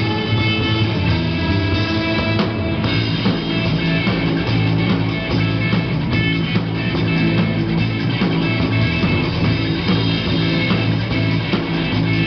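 Live rock band playing: electric guitars through amplifiers over a drum kit, a steady loud instrumental passage.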